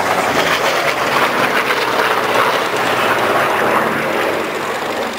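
Piston fighter's Pratt & Whitney R-2800 radial engine running loud and steady as the aircraft flies overhead, fading a little near the end.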